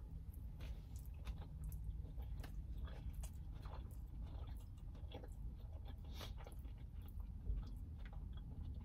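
Close-up chewing of a crunchy-topped shrimp tempura sushi roll: soft crunches and wet mouth clicks scattered through, over a low steady hum.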